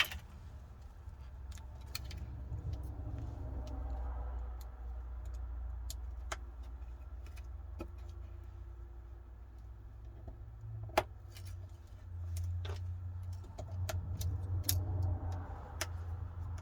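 Scattered small clicks and taps of phone parts and tools being handled and fitted during a smartphone reassembly, the sharpest about eleven seconds in, over a steady low hum.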